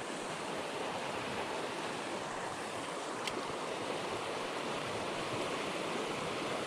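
River water running steadily, an even rushing hiss, with one faint short click about three seconds in.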